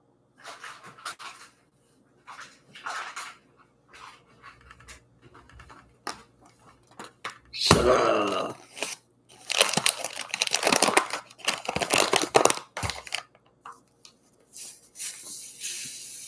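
A paper bag of granulated sugar being handled, unrolled and pulled open: irregular crinkling and rustling of stiff paper, loudest in a stretch of dense rustles in the middle.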